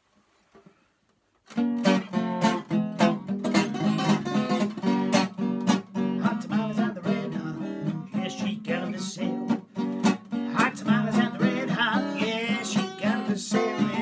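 A 1934 Gibson L-00, a small-bodied flat-top acoustic guitar, comes in about a second and a half in and plays a blues intro with a steady, driving beat.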